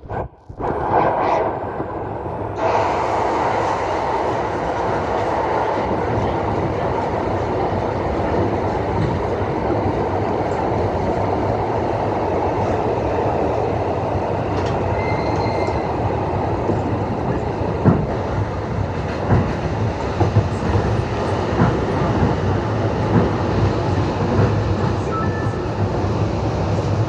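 A moving train running steadily, with the wheels knocking over rail joints, the knocks coming more often in the second half. It starts abruptly.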